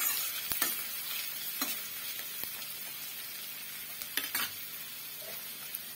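Chopped onions sizzling in hot oil in a metal kadai, with a few scrapes and knocks of a metal spatula against the pan, the last about four seconds in. The sizzle fades slightly toward the end.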